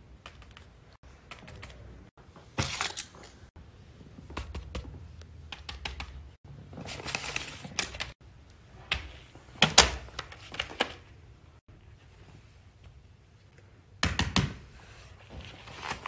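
Fidget toys being handled: a scattered series of sharp clicks and taps with short rustling, crinkling bursts. The loudest click comes about ten seconds in.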